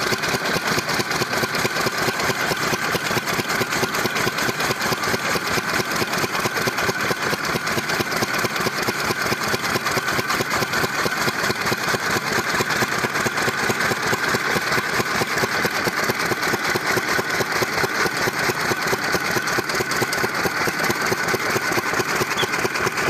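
1988 Delta single-cylinder stationary diesel engine running steadily with a fast, even beat, belt-driving a fodder chopper.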